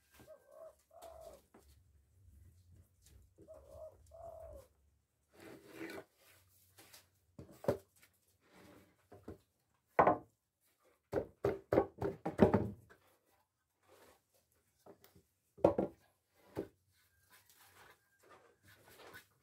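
Wooden knocks and clatter as timber boards and offcuts are moved and set down, the loudest near the middle. In the first few seconds a bird coos twice, two short notes each time.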